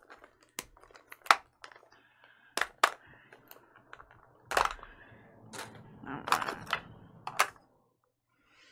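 Plastic Mini Brands capsule ball being pried open by hand: about nine sharp plastic clicks and snaps as its segments come apart, the loudest about a second in, with some rustling of the pieces near the end.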